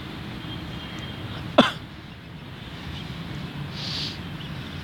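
Steady outdoor background noise with one short, sharp sound about a second and a half in, and a brief soft hiss near the end.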